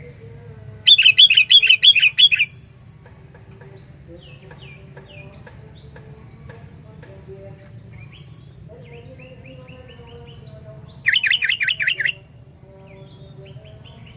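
Sooty-headed bulbul (kutilang) calling: two loud bursts of rapid, repeated notes about six a second, one near the start and one about eleven seconds in. Fainter short chirps and a steady low rumble run underneath.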